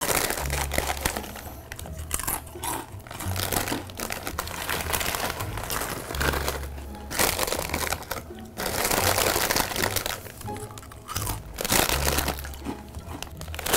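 Plastic chip bag crinkling and corn chips crunching as a man eats them, chewing obnoxiously loud, over low background music.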